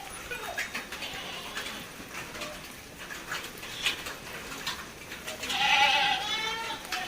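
A farm animal's long, wavering bleat about five and a half seconds in, lasting about a second, with scattered short clicks before it.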